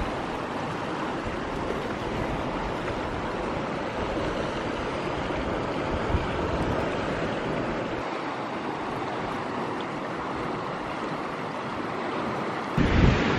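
Fast, choppy river water rushing steadily over rocks. Near the end, loud gusts of wind buffet the microphone.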